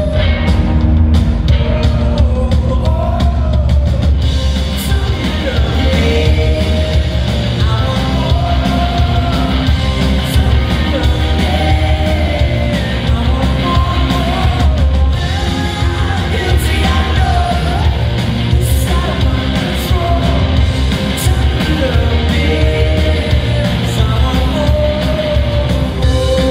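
Rock band playing live: a singer over electric guitar and a heavy, steady bass, loud and unbroken throughout.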